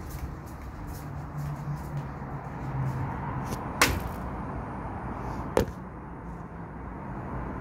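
Two sharp clicks nearly two seconds apart, over a steady low hum and hiss.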